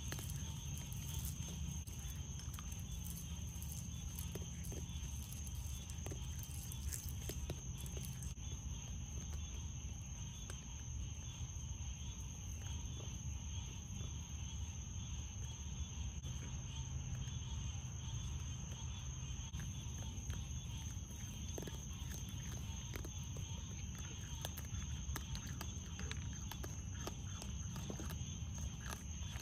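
Raccoons chewing dry pet food, with faint, scattered small crunches and clicks. Beneath them, night insects keep up one steady high-pitched drone, over a steady low hum.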